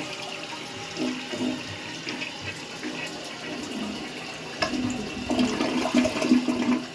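A 1987 Kilgore Aladdin 3.5-gallon-per-flush toilet flushing, water rushing and running through the bowl and tank, getting louder about halfway through.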